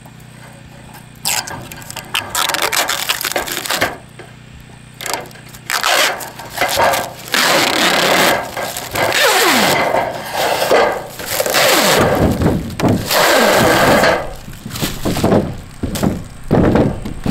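Clear protective plastic film being peeled off a metal drip cap, crackling and rustling in repeated irregular pulls, loudest in the middle.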